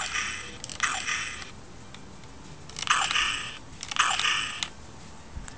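Homemade Arduino infrared tag rifle firing four times, in two pairs: its small speaker plays a lo-fi 8-bit sampled shot sound, a short noisy blast of about half a second that falls away at the end.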